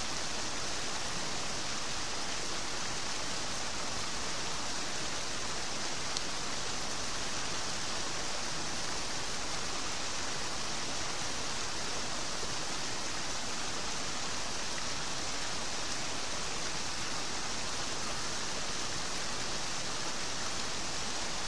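Turbulent water spilling into a narrow channel and churning, a steady rushing with no change in level.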